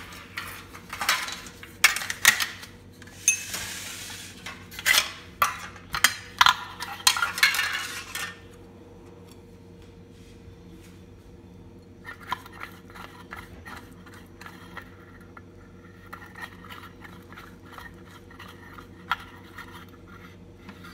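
A steel spoon stirring thick semolina-and-curd dhokla batter, clinking and scraping against a glass bowl for about eight seconds. After that, only sparse faint clicks over a steady low hum.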